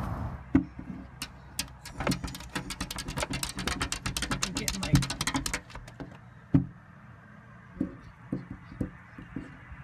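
Small white dog snapping at a window pane, its teeth clicking against the glass: a quick run of clicks for the first five seconds or so, then fewer, scattered knocks.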